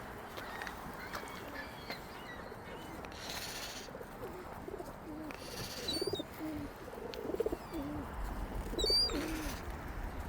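Feral pigeons cooing, a string of low overlapping coos from about four seconds in, with a few short high chirps from other birds.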